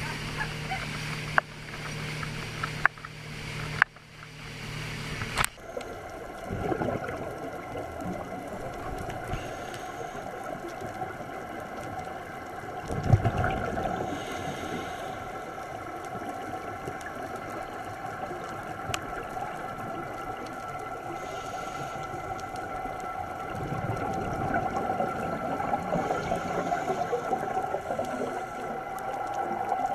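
Boat engine running at speed with spray hissing off the hull. About five seconds in it switches abruptly to muffled underwater sound: gurgling from scuba divers' exhaled bubbles over steady droning tones.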